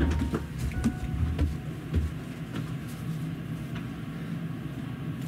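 Interior hum of a stationary electric train with its doors open, a low rumble easing off about two seconds in and then a steady hum remaining. Scattered light clicks and a few faint short beeps sound over it.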